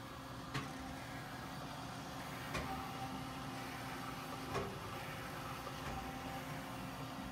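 Steady low hum of shop machinery with a faint steady tone, broken by three short clicks about two seconds apart.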